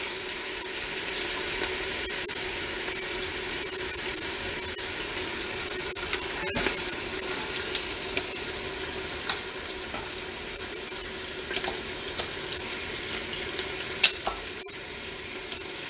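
Chicken pieces sizzling in hot oil in an Instant Pot's stainless steel inner pot on sauté, being seared to brown the skin. Scattered sharp clicks of metal tongs against the pot come through the steady sizzle as the pieces are turned.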